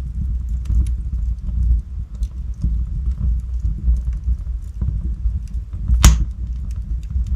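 Logs burning in a fireplace: a steady low rumble of flame with scattered small crackles, and one loud sharp pop about six seconds in.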